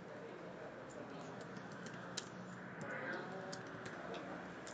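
Computer keyboard being typed on: a run of irregular key clicks over a steady low background noise.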